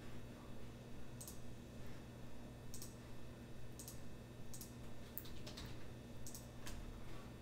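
Light, sharp clicks at irregular intervals, about one a second, some in quick pairs, over a steady low electrical hum.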